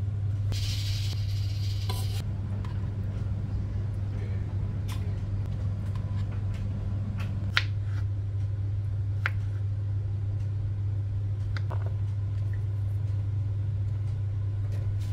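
A steady low hum throughout, with a brief hiss near the start and a few sharp, separate taps of a kitchen knife hitting a plastic cutting board as fruit is sliced.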